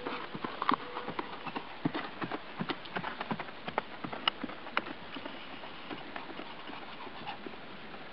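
Hoofbeats of a ridden Quarter Horse mare moving over grass, an irregular run of knocks and clicks that is loud at first and grows fainter after about five seconds as she moves away.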